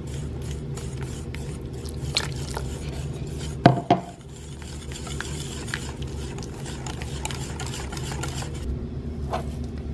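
Wire whisk beating milk into a runny egg-yolk, mustard and flour batter in a plastic bowl: a steady, fast clatter and slosh of the wires against the bowl. There is one sharper knock about three and a half seconds in.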